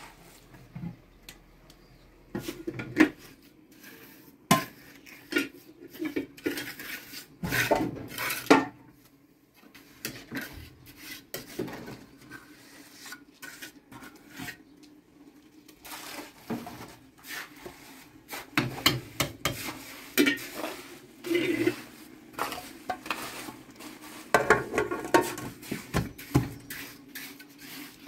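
Hand trowel scraping and clinking on mortar and stone while stones are set in a mortar bed: irregular short scrapes and sharp knocks.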